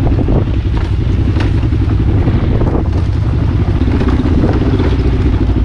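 Motorcycle engine running steadily, with a few faint rattles.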